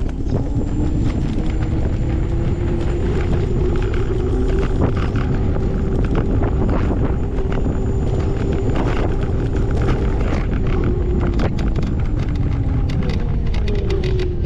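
A moving vehicle's motor whining over a heavy low rumble. The whine rises at the start, holds steady, and falls away near the end, with a run of clicks and rattles in the last few seconds.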